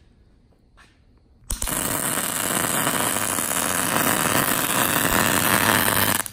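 MIG welding arc striking about a second and a half in and crackling steadily and loudly, then cutting off suddenly when the trigger is released.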